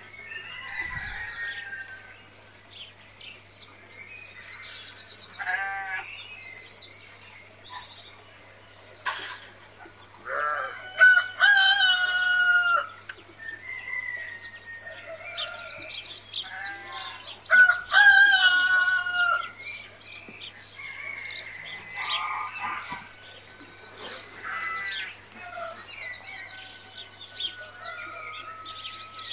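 Chickens: roosters crowing, loudest twice, about ten seconds in and again about seven seconds later, with chirping and clucking between.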